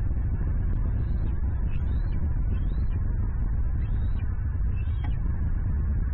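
Fledgling bald eagle squeeing: about five short, faint, high calls that rise and fall, over a steady low rumble on the nest-cam microphone.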